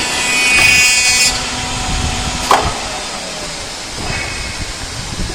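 Latch hole milling machine cutting a vinyl window profile: the spindle's high whine as the cutter mills the latch hole, cutting off just over a second in, then a sharp clack about two and a half seconds in.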